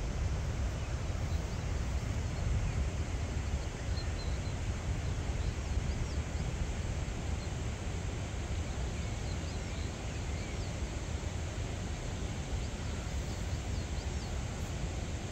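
Steady outdoor rushing noise, heaviest in the low rumble, with faint short high chirps scattered through it.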